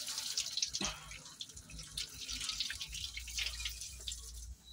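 Green engine coolant draining from under the engine in a steady stream, splashing onto the floor.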